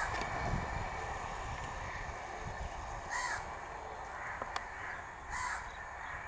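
Crows cawing, a few short calls in the second half, over a low rumble that fades away.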